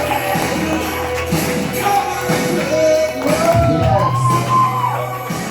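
Walk-on music with singing over a steady bass line, played as the next comedian is brought to the stage.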